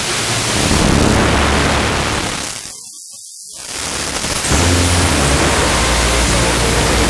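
FM radio receiver hiss and static while tuned between weak stations on the FM band around 93.8–93.9 MHz. Near the middle, the hiss briefly dips almost to silence, then comes back.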